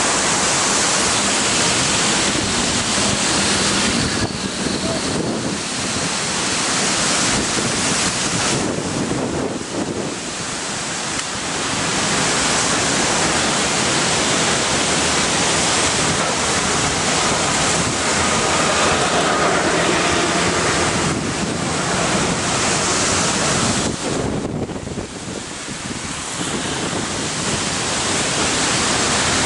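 Strong storm wind buffeting the microphone: a loud, dense rush of noise that eases briefly a few times and then builds again.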